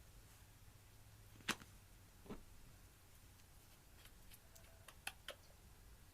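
Slime being handled, giving a few faint sharp clicks and pops: the loudest about a second and a half in, a softer one shortly after, and a small run of them near the end.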